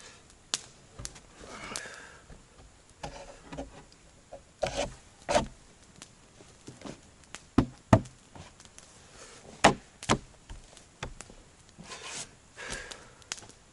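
Irregular wooden knocks and scraping as a log is worked and handled, with a couple of sharper, louder knocks a little past the middle.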